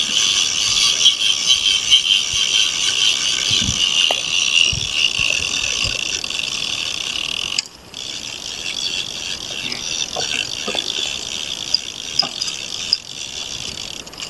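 Fishing reel ratcheting with a steady fast clicking while a fish is fought on the line. It cuts out briefly a little over halfway, then carries on fainter.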